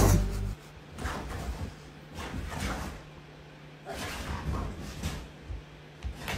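Dogs moving about on a couch: scattered soft scuffs and rustles with a few brief, faint dog sounds, over a faint steady hum.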